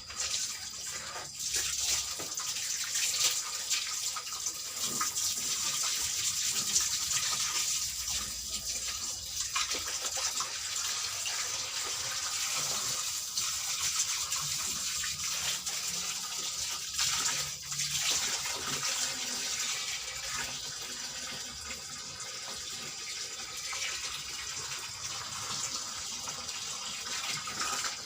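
Water running steadily in an LG washing machine under test, starting suddenly and gushing without a break.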